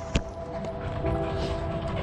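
Background music with held chords that change about a second in, over the low rumble of walking and camera handling, with a sharp knock just after the start.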